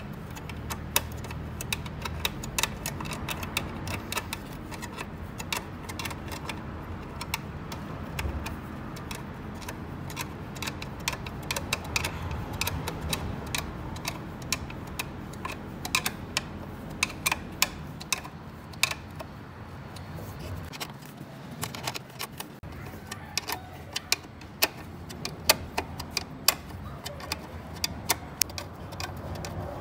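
Irregular metallic clicks and clinks of hand tools and engine parts being handled during reassembly work, over a steady low hum.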